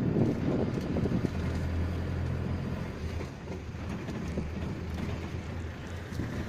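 Wind buffeting the microphone over the engine and tyre noise of a moving pickup truck, heard from its open bed.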